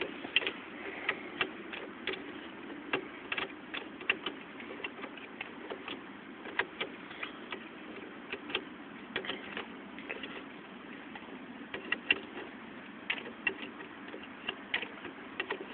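Irregular light clicks and taps, one to three a second with uneven gaps, over a faint steady hiss.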